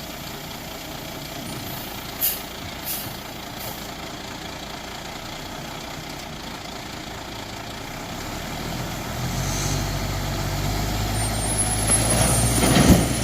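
A heavy diesel engine rumbles low, growing steadily louder over the last several seconds, with a few light clicks earlier on.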